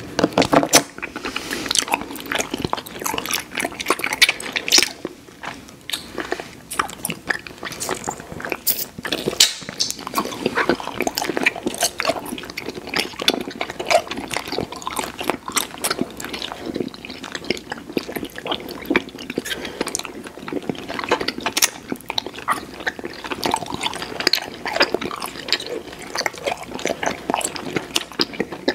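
Close-miked chewing of chewy candy: a constant stream of small wet clicks, smacks and squelches from the mouth.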